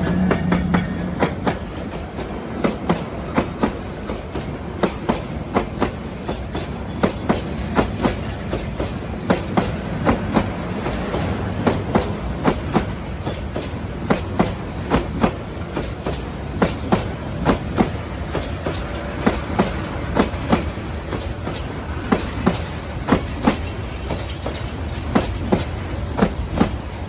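Passenger train coaches rolling past, their wheels clacking over the rail joints in regular pairs of clicks over a steady rumble.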